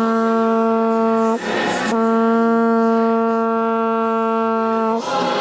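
A long wooden folk horn, a hollowed wooden tube bound with rope, is blown in two long held notes on the same steady pitch. There is a short breath between them about a second and a half in, and the second note stops near the end.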